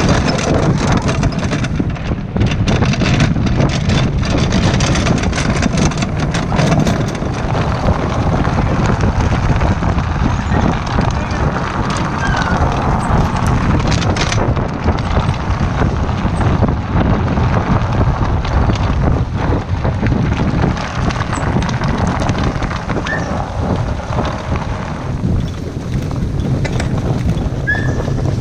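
Wheeled dog cart rolling fast over a rough dirt forest trail behind a sled-dog team: a steady rumble with constant clattering and knocking from the rig.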